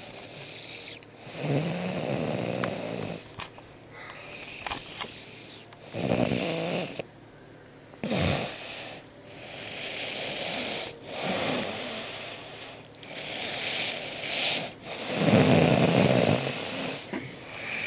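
A man snoring in his sleep: about seven rasping snores at uneven intervals, the strongest one some fifteen seconds in. A couple of brief clicks sound between the snores around three and five seconds in.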